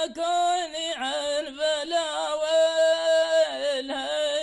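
A man chanting a line of Arabic poetry in a single voice, a slow, wavering melody with a long held note a little past halfway.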